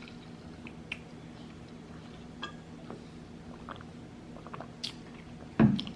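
Close-miked mouth sounds of a person chewing food, with small wet clicks and smacks scattered through. Near the end there is a short, loud vocal sound from the eater.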